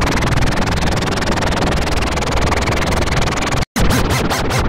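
Toilet-flush sound effect: a loud, steady rushing noise that cuts off after about three and a half seconds. After a brief gap, a pulsing electronic teleport sound effect begins, about four or five pulses a second.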